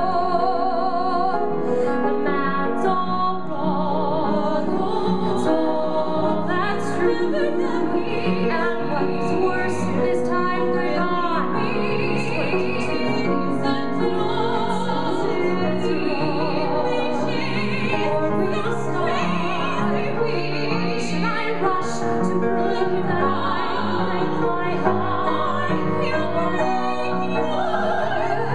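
Two women singing a musical-theatre duet live, with piano accompaniment; the sung notes waver with vibrato and the music runs on without a break.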